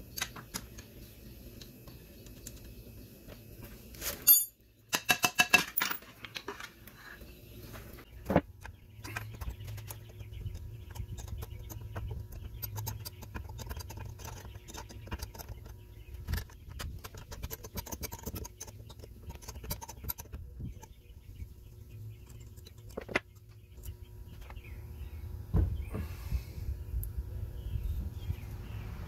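Metal parts of a Mercury 110 9.8 hp outboard's lower unit being handled and worked loose at the water pump housing: scattered clicks and light clatter. There is a sharp knock about four seconds in and a quick run of clicks soon after, over a low rumble.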